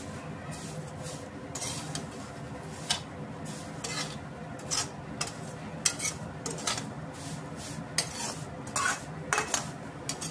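Steel spoon scraping and clinking against a metal kadhai in irregular strokes as fine vermicelli is stirred and turned while it dry-roasts in ghee on a low flame.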